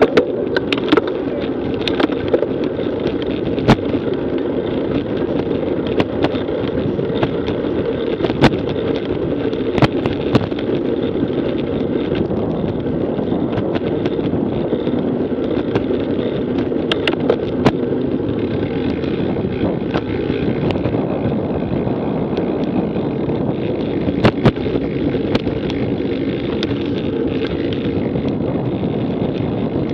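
Steady wind and road noise from a road bicycle in motion, recorded by a bike-mounted action camera, with scattered sharp clicks and knocks at irregular times.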